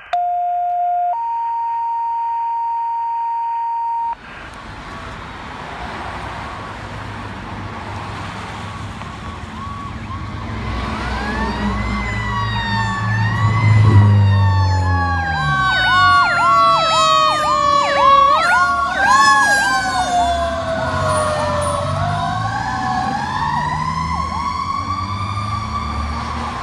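A steady electronic tone that steps up in pitch about a second in and stops after about four seconds. Then road traffic, and a responding fire engine's sirens build up: a fast-repeating yelp and slower rising-and-falling wails. They are loudest about halfway through, with the truck's low engine rumble as it passes, and go on more softly after.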